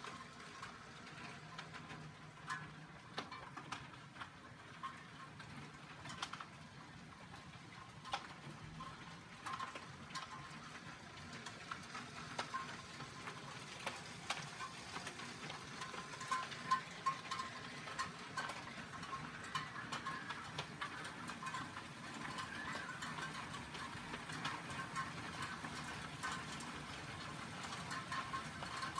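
Hailstones pattering down, with a continual hiss and many irregular sharp ticks of stones striking glass and hard ground, heard from behind a window. It grows busier and a little louder in the second half.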